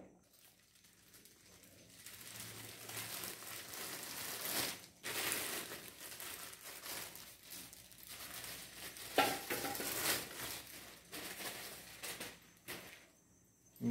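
Clear plastic bag crinkling and rustling as an air rifle is pulled out of its wrapping. It starts about two seconds in and goes on unevenly, with several louder rustles.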